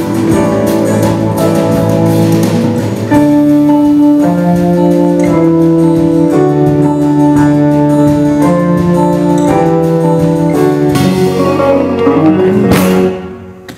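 Live band playing an instrumental passage of sustained keyboard chords with acoustic guitars; the music dies away near the end.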